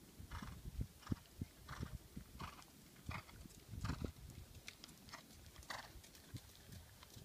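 Horse hoofbeats on the sand footing of a riding arena, a faint, steady stride rhythm of soft thuds with gritty scuffs, loudest about four seconds in as a horse passes close by.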